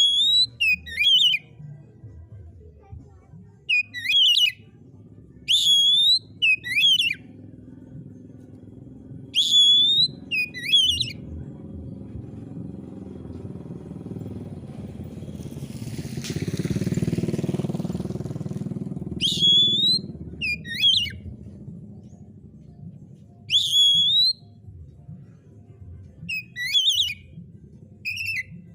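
An oriental magpie-robin (kacer) sings in full song: loud, clear whistled phrases of quick falling notes, about eight phrases with pauses between them. A low rumble swells and fades in the middle, when the bird is silent.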